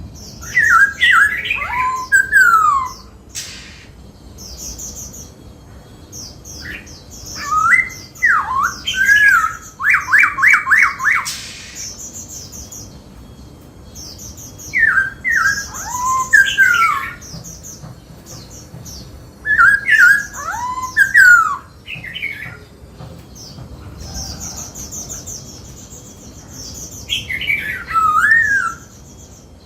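Black-throated laughingthrush singing: loud whistled phrases that slide up and down, coming in bouts every few seconds, with a fast run of repeated notes about ten seconds in.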